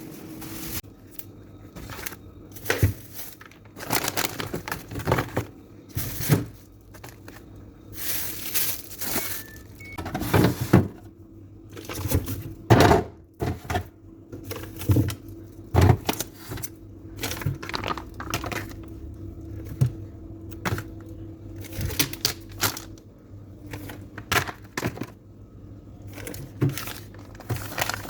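Items and containers being handled and set into a refrigerator: irregular clicks, knocks and clatter, a few louder ones near the middle, over a faint steady hum.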